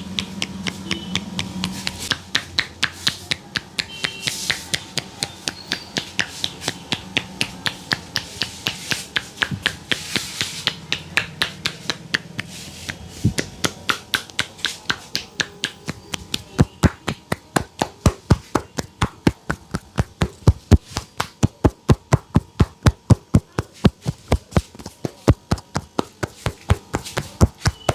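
A barber's hands tapping and slapping a customer's head during a head massage, in a quick, even rhythm of about three strokes a second. The strokes turn sharper and heavier about halfway through.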